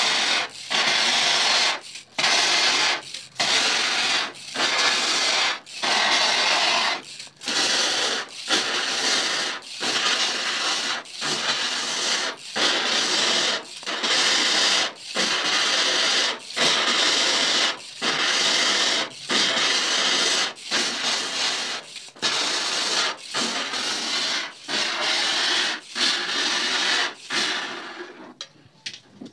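Water spray from a brass hand-pump sprayer hissing onto the mesh of a screen-printing screen in repeated bursts, roughly one a second, one burst per pump stroke. It is washing the unexposed emulsion out of the mesh to develop the stencil. The bursts weaken and stop near the end.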